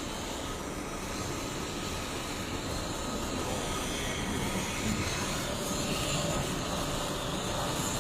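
Automatic welding machine at work on valve parts: a steady, even hiss and hum.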